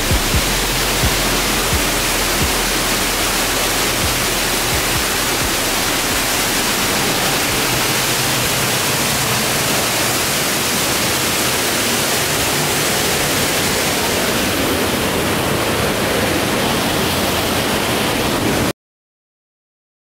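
Steady rush of a waterfall pouring onto rocks and into a churning plunge pool, heard close up; it cuts off abruptly near the end.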